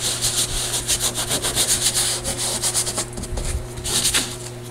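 Gloved hands rubbing fabric flat against a glued-down backing, a quick series of rubbing strokes for about three seconds, then a shorter burst near the end. The rubbing presses the fabric into wet gel matte medium to bond it.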